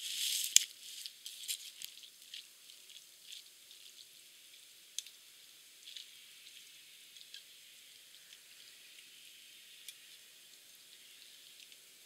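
Rustling of dry leaves and clothing as a person sits down on the forest floor, with one sharp click about half a second in. This is followed by scattered light clicks and scrapes of a metal fork against a ceramic plate while eating pasta, over a faint steady hiss.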